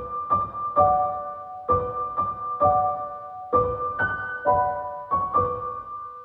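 Background piano music: ringing notes struck in a slow, repeating pattern, starting suddenly out of silence.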